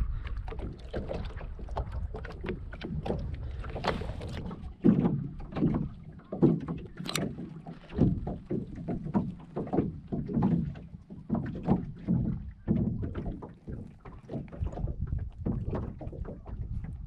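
Water lapping and slapping irregularly against the hull of a small sailing dinghy, with a low wind rumble on the microphone.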